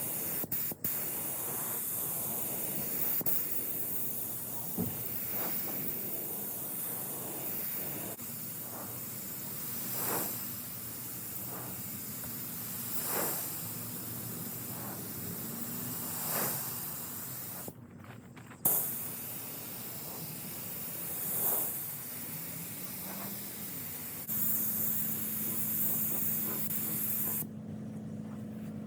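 Steady hissing, swelling briefly every few seconds, with a low steady hum joining about 24 seconds in.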